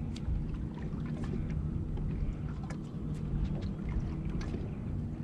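Bass boat's bow-mounted electric trolling motor humming steadily under a low rumble of water and wind, with scattered light ticks.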